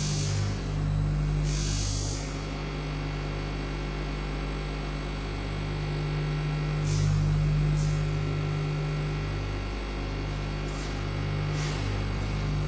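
A steady low electronic hum with several fixed tones above it, broken by short hissing swishes: two near the start, two about seven seconds in, and one more near the end.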